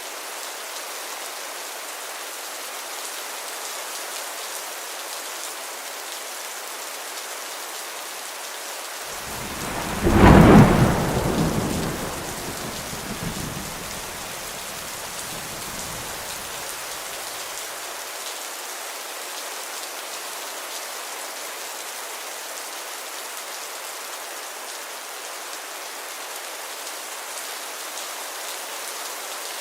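Steady heavy rain, with a single crack of thunder about ten seconds in that rumbles away over the next several seconds.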